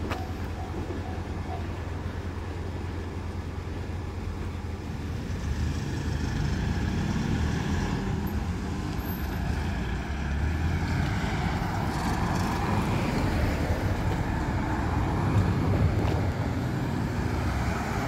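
Road traffic moving off after a railway level crossing reopens: a truck and cars pulling away and driving on with a low engine and tyre rumble that grows louder from about five seconds in. The crossing's warning bell rings its last few dings in the first second or two, then stops.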